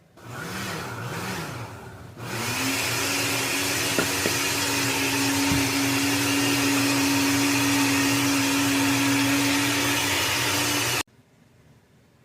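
Failing compressor of an LG refrigerator running loud, a hum over a wide rushing noise. For the first two seconds its pitch wavers up and down twice, then it rises quickly into a steady, higher hum that holds until it cuts off suddenly about eleven seconds in.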